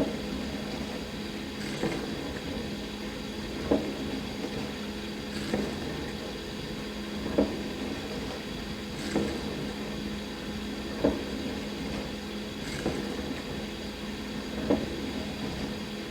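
Dishwasher running a wash cycle: a steady pump hum under a wash of water noise, with a short surge about every two seconds.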